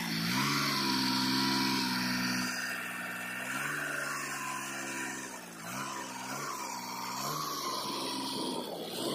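Sonalika DI 35 tractor's diesel engine running under load, hauling a loaded trolley. Its engine speed drops and picks up several times, and near the end the trolley's tipping bed rises.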